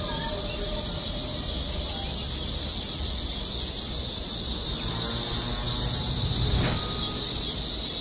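Cicadas singing in a steady, high-pitched chorus, with a few faint bird chirps near the start.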